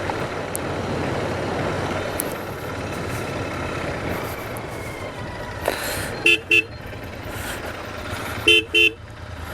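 A vehicle horn gives two quick double beeps, one pair about two-thirds of the way in and another near the end, over a steady rushing noise with a low hum.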